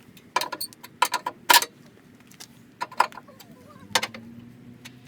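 Sharp clicks and knocks of hard plastic and metal parts being handled during a car headlight swap, about seven in irregular groups, the loudest about a second and a half in.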